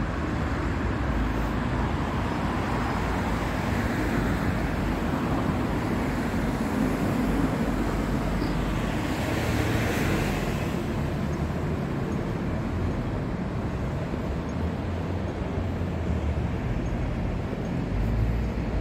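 Road traffic noise, a steady hum with low rumble, with one vehicle swelling past about halfway through.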